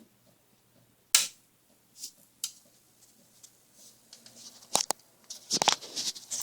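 Handling clicks and rustling: one sharp click about a second in, a few lighter clicks, and a burst of rustling and knocks near the end, over a faint low hum.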